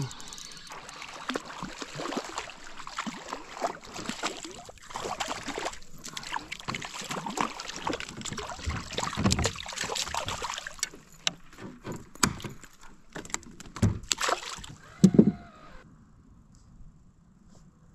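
Hooked shad splashing at the surface beside a kayak as it is pulled in by hand on the line, with clicks and rustles of handling. A loud knock against the kayak near the end, after which the sound drops to a low hush.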